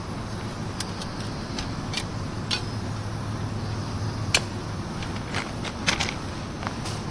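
Light clicks, taps and scrapes of handling a small canister gas stove, its metal pot and lid, and a box of matches while lighting the stove. One sharper click comes about four seconds in, over a steady low rumble.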